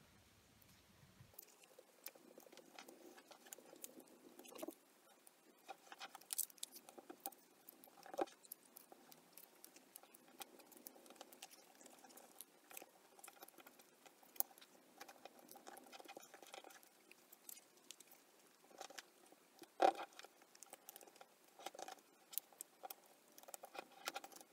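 A dollar bill crinkling and rustling faintly as fingers fold and crease it, with scattered sharp crackles, the loudest about 20 seconds in.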